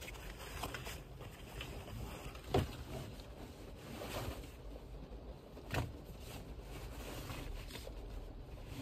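Canvas tote bags being handled inside a car's cabin: soft rustling with two sharper knocks about three seconds apart, over a low steady cabin rumble.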